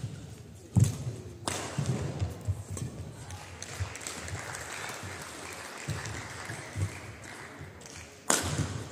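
Badminton singles rally in an echoing hall: sharp racket strikes on the shuttlecock, one about a second in and another near the end, with the players' footsteps thudding on the court. A steady hiss of noise sits between the strikes.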